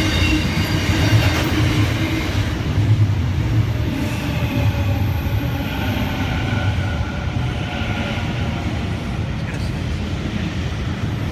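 Container freight train wagons rumbling past on the rails with wheel noise and thin squealing tones. From about halfway, a double-deck electric passenger train passes on the nearer track, adding a steady whine over the rumble.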